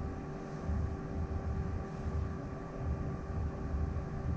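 Low, uneven rumble with a faint steady hum underneath; no distinct event.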